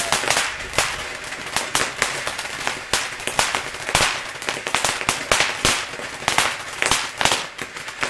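Ground fountain firework spraying sparks with a steady hiss and dense, irregular crackling pops, several a second.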